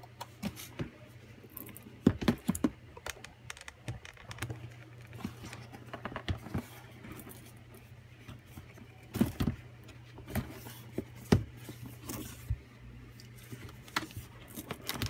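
Hands handling and opening a cardboard retail box of headphones: scattered clicks, taps and scrapes of cardboard and plastic, with a few sharper knocks among them.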